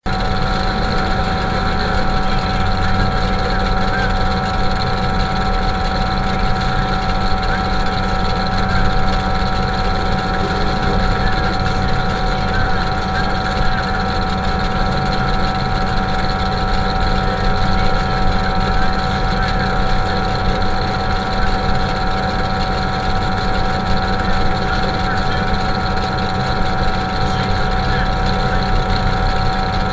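Demolition derby truck's engine idling steadily, heard from inside the stripped-out cab.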